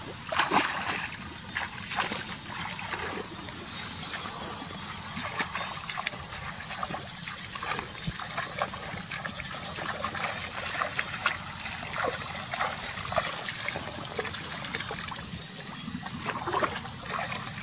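Water splashing and trickling, with many small irregular splashes and drips throughout.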